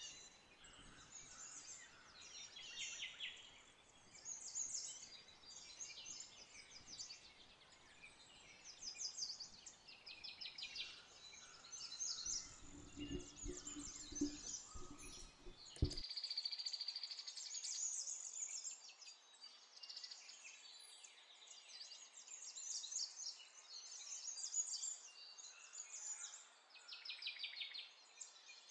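Small songbirds chirping and trilling over and over, faint, with a brief low rumble about halfway through.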